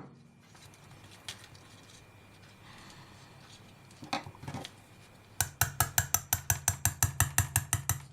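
Small bearing being tapped into a TBS Discovery 750 kV brushless motor with a drift: a couple of single light taps, then a quick, even run of little metallic taps, about eight a second, over the last few seconds.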